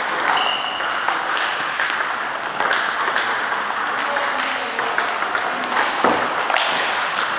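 Table tennis ball clicking off bats and table in quick, irregular succession during a doubles rally, with the clicks echoing in a large hall.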